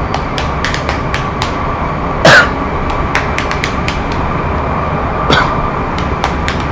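Two loud fake coughs, one about two seconds in (the loudest) and a weaker one about five seconds in, over a running metro train: a steady rumble, a held whine and frequent rattling clicks from the carriage.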